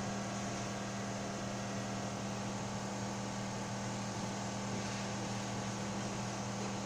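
Steady low electrical hum over an even hiss, unchanging throughout: the running noise of a kitchen appliance motor.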